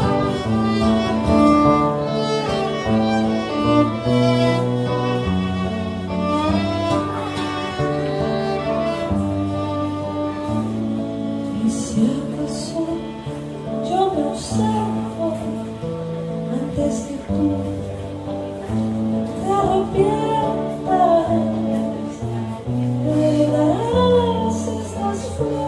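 An acoustic guitar and a violin playing an instrumental passage live. The guitar's low chords change every second or two, and the violin carries the melody with a wavering vibrato.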